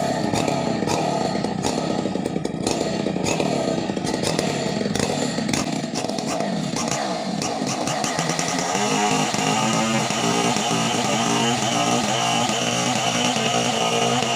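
Chainsaw engine running hard; rough and uneven at first, it settles into a steady, even tone about halfway through.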